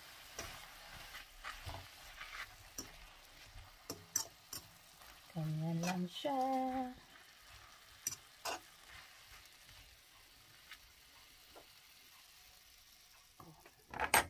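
Sausages sizzling faintly in a nearly dry non-stick frying pan as the last of their cooking water boils off, with scattered clicks of a utensil against the pan as they are pushed around. A short hummed voice sound comes about halfway through.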